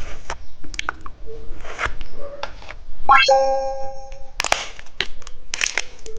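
A bright ringing chime sounds once, a little after three seconds in, and rings for about a second. Short clicks and brief rustles are scattered around it.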